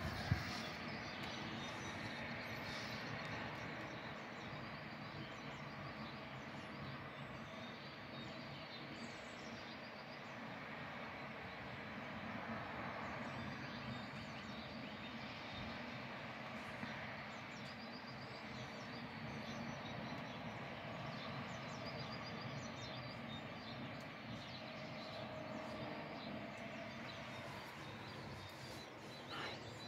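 Outdoor town ambience: a steady hum of distant traffic with birds chirping faintly now and then. A single brief knock right at the start.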